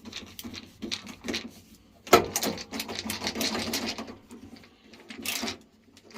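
Clattering and rattling of hand tools and metal parts being handled during boiler repair work, with a sharp knock about two seconds in followed by about two seconds of continuous rattling, and another brief clatter near the end.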